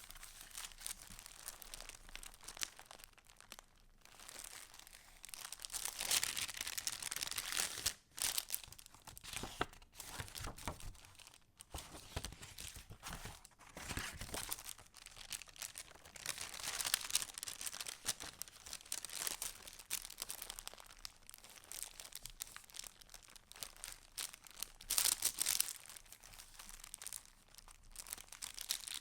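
Paper rustling and crinkling as the pages and paper pieces of a handmade junk journal are handled and turned, in irregular swells with a few light clicks and taps.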